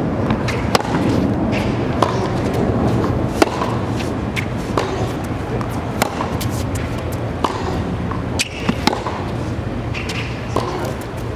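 Tennis rally on a hard court: crisp racket strikes on the ball about every second and a half, the two players alternating, with fainter ball bounces between the hits, over steady background noise.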